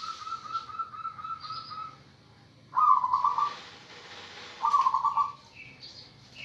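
Local zebra dove (perkutut) singing: a run of quick, even notes for about two seconds, then two loud rolling coos about two seconds apart. Faint high chirps of other small birds come in near the end.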